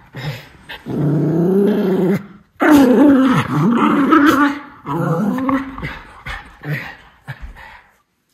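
Miniature schnauzer play-growling loudly in long, wavering bouts while wrestling another schnauzer. It is vocal play, not aggression. The growling dies away and stops just before the end.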